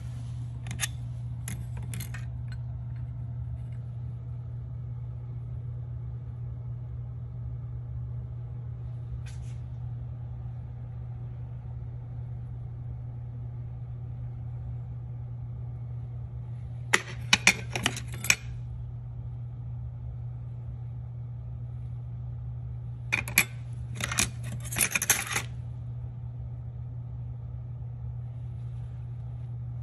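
Metal motorcycle clutch plates, friction and steel, clinking against each other and the steel tray as they are handled: a few clinks near the start, then two short bursts of clatter about halfway and past two-thirds, over a steady low hum.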